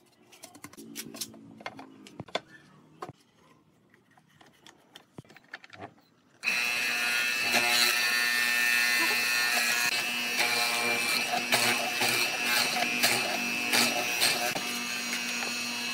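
A few faint clicks and knocks, then about six seconds in a bench hollow-chisel mortiser's motor starts suddenly and runs with a steady hum, its square chisel and auger bit plunging into the wood to cut a mortise.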